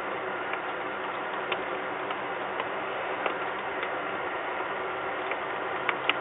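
Steady rain: an even hiss with irregular sharp drops ticking close by, the two loudest near the end.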